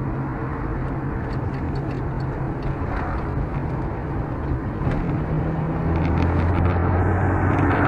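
Car engine and road noise heard from inside the cabin while driving; the engine hum rises and gets louder about five seconds in.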